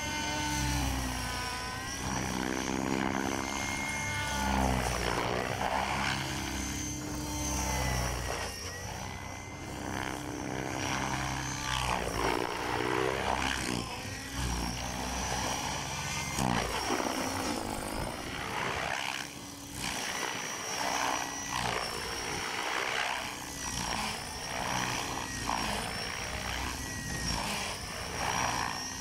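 Align T-Rex 600 electric RC helicopter flying aerobatics: its motor whine and main rotor blade noise rise and fall in pitch over and over as the rotor is loaded through flips and rolls.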